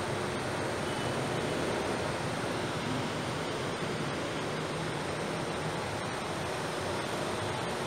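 Steady hiss-like background noise with a faint low hum, with no speech or singing.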